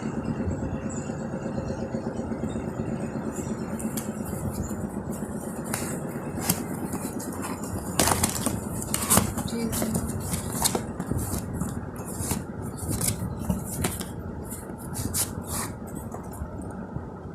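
Phone packaging being handled during an unboxing: many short clicks, taps and scrapes over a steady low background hum, busiest in the middle stretch.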